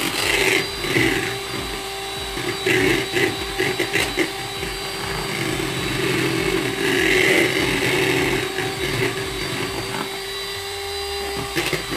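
Electric hand mixer running steadily, its beaters whipping egg whites toward stiff peaks.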